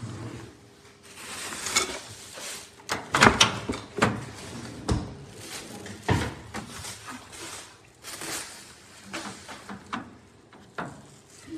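Irregular clicks, knocks and clatter of things being handled, with the sharpest knocks a few seconds in.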